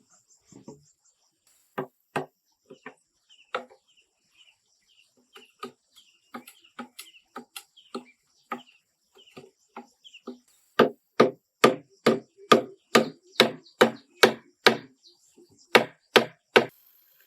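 Wood being chopped by hand with a bladed tool. Irregular strokes come at first, then a fast, even run of about two heavy strokes a second in the second half, broken by a short pause near the end.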